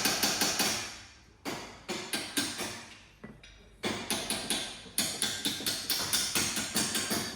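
A hammer striking repeatedly in quick runs of sharp taps, about three or four a second, broken by short pauses.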